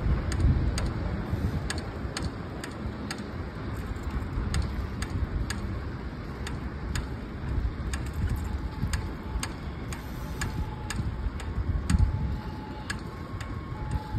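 Bicycle rear wheel with a broken spoke ticking about twice a second while being ridden, over steady wind and road rumble.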